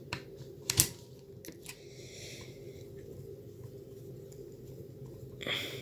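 Handheld screwdriver turning screws out of an airsoft V2 gearbox shell: small clicks and scraping, with one sharp knock about a second in and a brief rustle near the end.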